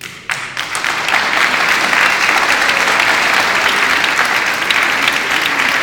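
Audience applauding, breaking out just after the speech ends and quickly swelling into steady, dense clapping.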